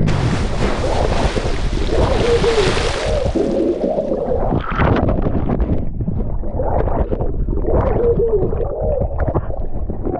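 A snorkeler splashing into the sea, then the rush and bubbling of water around a submerged action camera for about four seconds, followed by rough sloshing water with repeated wavering tones as the camera bobs at the surface.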